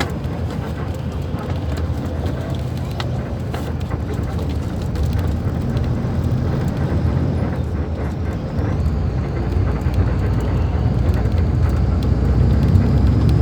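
Diesel engine of a Mascarello Roma M4 bus on an Iveco chassis, running steadily, then growing louder and deeper over the last few seconds.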